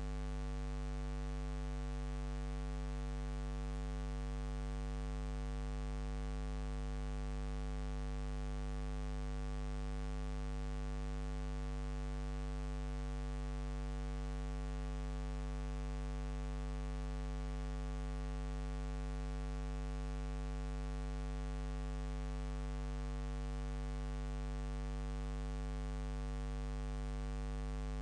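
Steady electrical mains hum: a low buzz with a stack of overtones and a faint hiss, unchanging, with no other sound.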